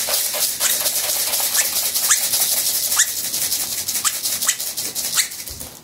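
Agitated pet bird making a scratchy, rattling hiss broken by short rising chirps every half second or so; it stops near the end. The bird is angry.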